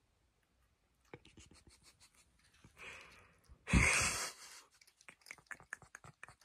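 A cat sniffing right at a phone's microphone. There is a soft puff of breath near the middle and a louder breathy burst with a bump just before four seconds, among light clicks and taps.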